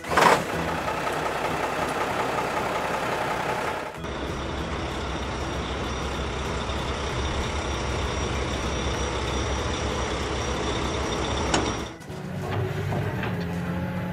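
Truck engine sound running steadily, changing to a deeper rumble about four seconds in and cutting off suddenly about twelve seconds in.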